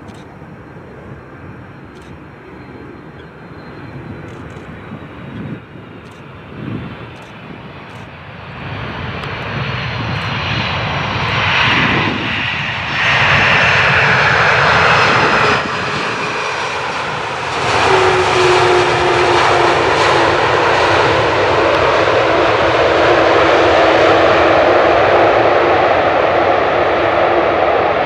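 Boeing 747-400's four jet engines building from a faint rush into loud, steady jet noise, with a low hum that slowly falls in pitch over the last ten seconds.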